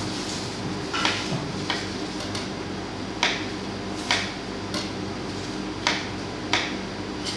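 A kitchen knife knocking sharply on a cutting board as vegetable pieces are cut, about seven separate strokes at irregular intervals, over a steady low electrical hum.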